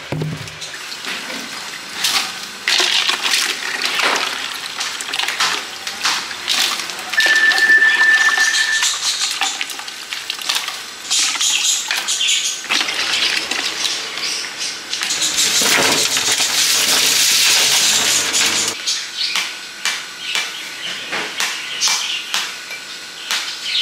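Stall food preparation: knocks and clatter of fruit and plastic baskets, and water poured and splashed over sliced green fruit in a plastic basket, hissing for a few seconds past the middle. A brief steady high tone sounds about seven seconds in, and near the end come short repeated scraping strokes on the rind of a round green fruit.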